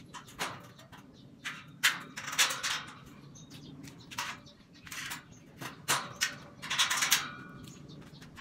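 Steel square-tube bed frame being handled and fitted together by hand: a series of sharp metal knocks and short scraping rattles, loudest about two seconds in and again near seven seconds.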